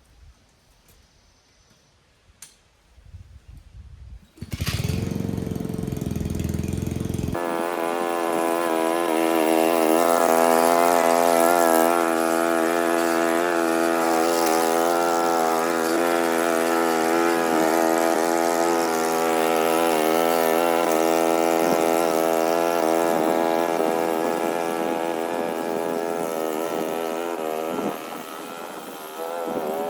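Lawn mower engine starting: it cranks with a low rumble for about three seconds, catches, and then runs steadily. Near the end it dips in level briefly.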